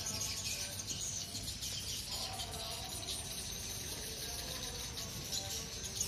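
Swiftlets twittering in a dense, continuous high chatter, with lower whistled notes coming and going.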